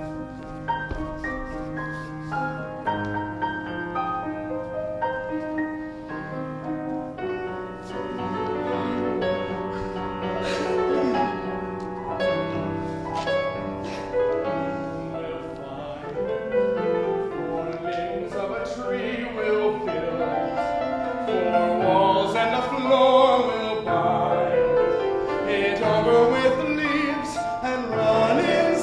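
Piano accompaniment to a musical-theatre song, joined about a quarter of the way in by wordless singing that grows louder toward the end.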